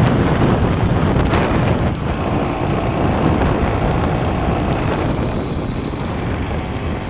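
Motorized bicycle's small engine running steadily while riding, with wind buffeting the microphone.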